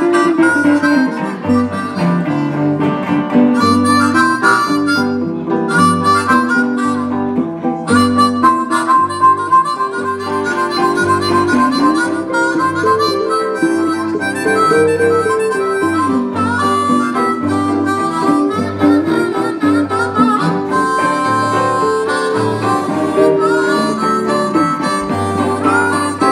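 Live blues band: a harmonica played into a microphone leads with sliding, bent notes over electric guitars and an even, pulsing bass line.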